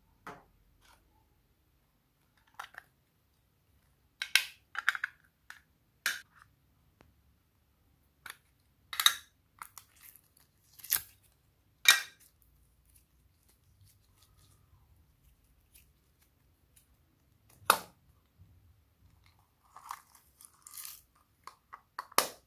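Pink slime and soft foam clay being handled in a glass bowl: scattered short crackles and clicks, irregular, with quiet gaps between.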